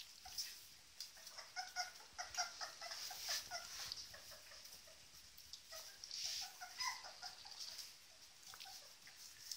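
A litter of three-week-old puppies squeaking and whimpering in short, high calls, in quick runs, while they eat together from a shared dish, with wet smacking and lapping throughout.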